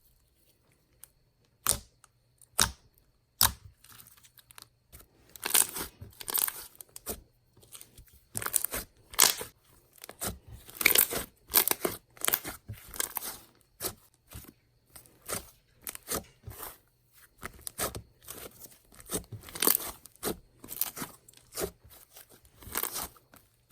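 Glossy clay slime being handled and poked by hand: irregular sticky clicks, crackles and pops, in short bursts a few times a second.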